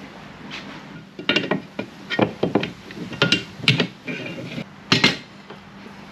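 A run of irregular knocks and clinks of hard tools and parts being handled and set down, about a dozen strikes between about one and five seconds in, the loudest near the end.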